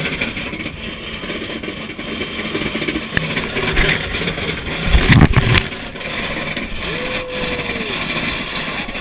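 Roller coaster ride noise picked up by a wrist-mounted GoPro: a steady rushing noise with a loud rumbling thump about five seconds in and a short squeal near the end.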